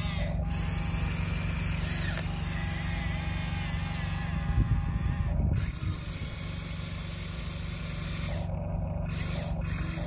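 Radio-controlled Huina excavator whirring steadily as its electric motors swing and lift the boom. About halfway through, a louder rush and rumble as a bucketful of dirt is tipped into the RC dump truck's bed.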